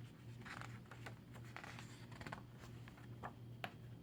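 Faint rustling and a few sharp paper clicks of a picture book's pages being handled and turned. A steady low hum runs underneath.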